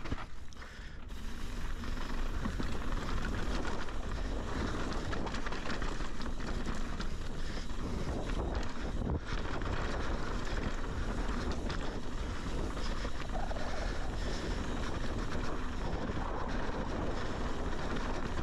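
Wind buffeting the action camera's microphone as a mountain bike rolls downhill on dry dirt and rock, with a steady rumble from the tyres and frequent small rattles and knocks from the bike. The rumble dips briefly about a second in.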